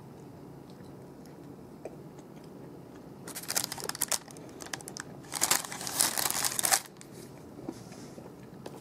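Clear plastic film wrapper of a microwaved burrito crinkling as the burrito is handled. It comes in two bursts starting about three seconds in, and the second burst is longer.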